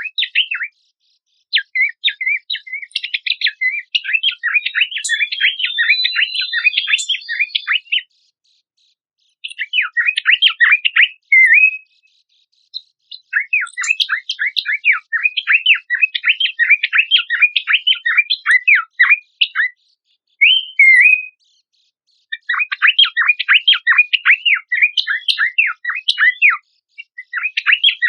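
Pelanduk semak (Horsfield's babbler) song: long bursts of rapid, chattering chirps, broken by brief silences about every few seconds.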